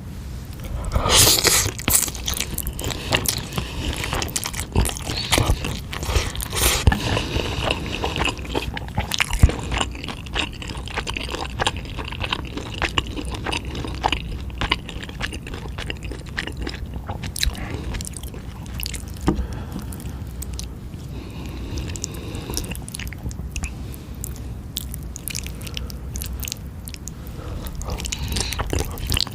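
A person chewing eel and spicy fire-chicken noodles close to the microphone, with many quick, sharp, wet mouth clicks and smacks, louder about a second in.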